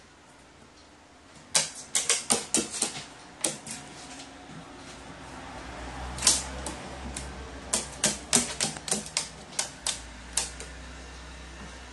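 Crow pecking, its beak and claws knocking sharply on a hard surface in quick runs of taps, about four or five a second, in two bursts.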